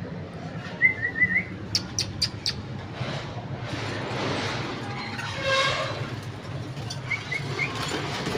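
Pet parrot and budgerigars chirping and whistling. There are two quick runs of short rising chirps, about a second in and again near the end, with a few sharp clicks and a longer pitched call in the middle.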